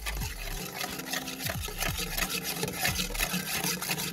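Sugar caramelizing in an aluminium pot, fizzing and bubbling, as a metal spoon stirs and scrapes across the pot.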